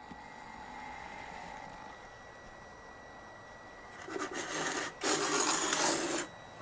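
Two loud rubbing, scraping sounds about four and five seconds in: a polystyrene foam block being handled and slid against the hot wire cutter's table, with card templates pinned on it. Before them there is only a low hiss with a faint steady high whine.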